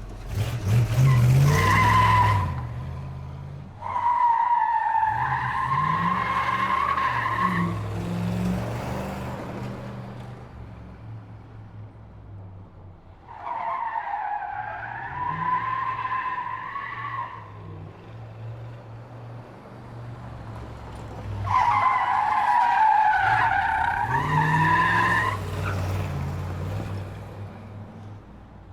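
Muscle car driving hard, its engine revving up as the tyres squeal in four separate skids: one just at the start, then about 4, 13 and 21 seconds in, each a few seconds long. Between the skids the engine runs on more quietly.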